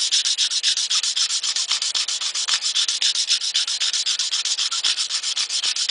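Hand file scraping across stainless steel trim in quick, evenly repeated strokes, a steady metallic rasping. The file is taking down a high spot left after a dent was hammered out, evening the surface flat.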